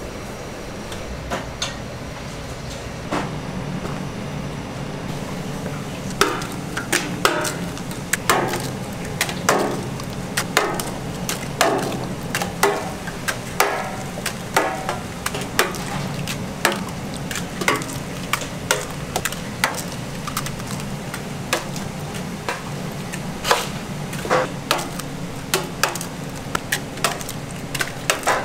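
Eggs being cracked one after another against the rims of stainless-steel pans: a long run of sharp taps, starting about six seconds in, over a steady low kitchen hum.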